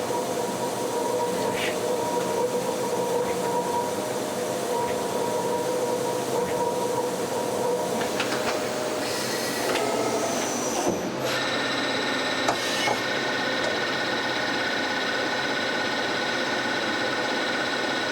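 CNC turning center running, a steady machine whine over a noisy hiss. About ten seconds in the tone shifts higher, with a few clicks, and it then runs on steadily at the new pitch.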